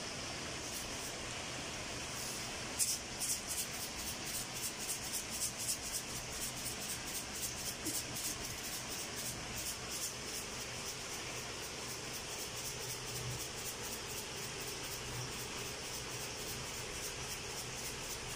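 A large pot of chicken stew simmering on the stove with a steady hiss. From about three seconds in there is a run of light, quick rattling ticks, a few a second, as a shaker is shaken over the pot. They are loudest at first and fainter after about ten seconds.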